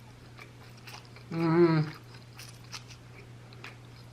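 Close-miked chewing of food with small wet mouth clicks, and a short hummed "mm" about a second and a half in. A faint steady low hum sits underneath.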